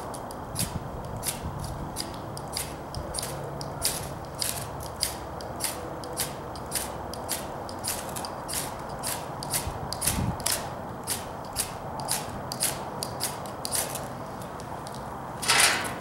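Knife blade scraped hard and fast down a ferrocerium (ferro) rod again and again, about three sharp scrapes a second, throwing sparks onto a bird-nest tinder bundle. Near the end the striking stops and a louder rustle and clatter of handling follows.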